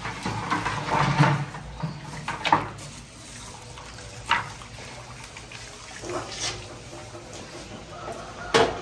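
Liquid splashing and pouring in several short bursts.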